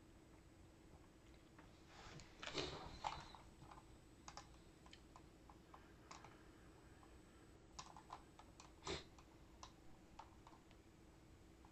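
Near silence with faint, scattered short clicks, bunched about two and a half seconds in and again near nine seconds, over a faint steady hum.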